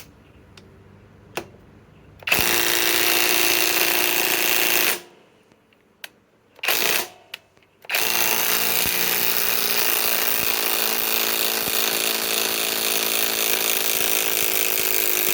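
Kobalt cordless right-angle impact wrench hammering in reverse to back out a 5-inch power lag screw. It runs in a burst of about two and a half seconds, gives a couple of short blips, then runs steadily for about eight seconds.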